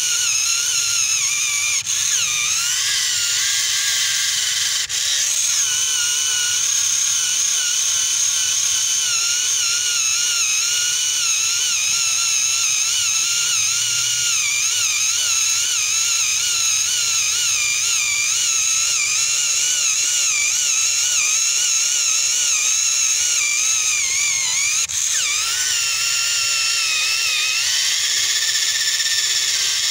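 Small electric motor and gearing of a homemade toy tractor whining at a high pitch that wavers up and down as the wheels work through loose sand.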